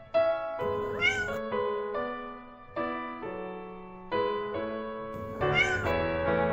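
A cat meows twice, about a second in and again near the end, over piano music.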